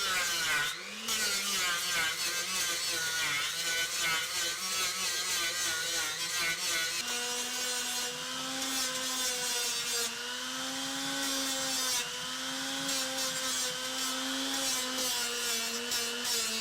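Electric straight grinder with a stripping wheel grinding rust off steel car bodywork. The motor's whine wavers as the wheel is pressed to the metal and steps up in pitch about seven seconds in, over a steady grinding hiss.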